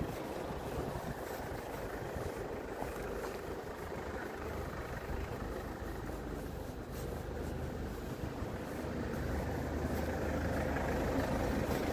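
Engines of a queue of cars idling, a steady low rumble that grows slightly louder near the end.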